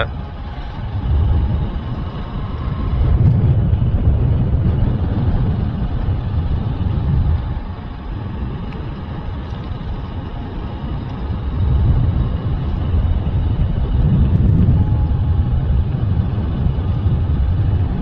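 Wind rumbling on the microphone during a motorcycle ride on a road, with vehicle noise underneath; the rumble swells louder twice.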